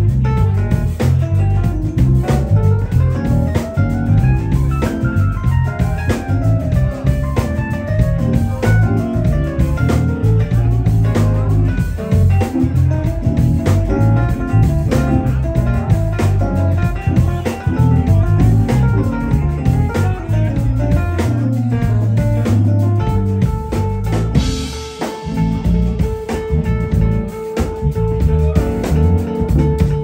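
Live instrumental band playing a groove: drums and bass under a fast, winding lead line that runs up and down. About three quarters of the way in, a long held note comes in and sustains to the end.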